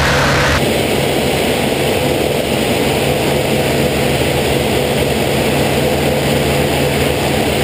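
Steady drone of a Vought F4U Corsair's 18-cylinder Pratt & Whitney R-2800 radial engine and propeller at cruise power, heard from inside the cockpit in flight, with rushing air. About half a second in the sound turns abruptly duller without any change in the engine.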